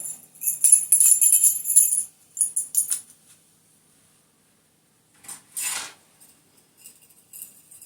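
Metal jewellery, chain and pendants, jingling and clinking as it is handled. It is loudest in the first two seconds, with a short rustle about five and a half seconds in and more jingling near the end.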